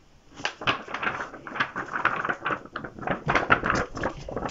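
A paper notebook handled close to the microphone: its pages and cover rustle and click in an irregular, crackly run.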